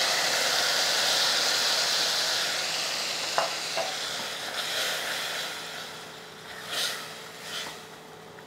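Soaked chana dal and its soaking water hitting hot oil and spices in the pot: a loud sizzle that slowly dies down over the last few seconds. A few light knocks and scrapes of a stirring spoon come in the middle and near the end.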